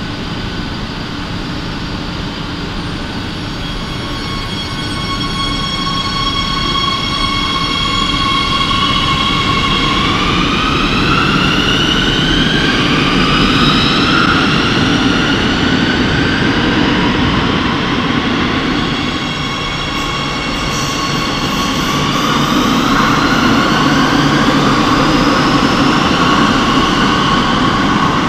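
Madrid Metro Serie 8000 train's electric traction whine over wheel-on-rail rumble. The whine is a set of steady tones that climbs in pitch as the train accelerates, once about ten seconds in and again about twenty seconds in.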